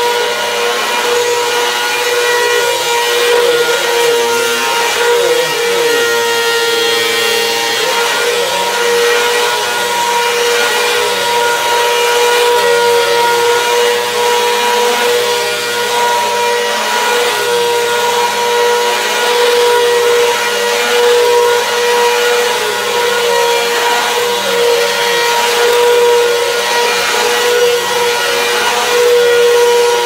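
Upright vacuum cleaner running steadily: a constant motor whine over a loud rush of air as it is pushed over a rug and a wood floor.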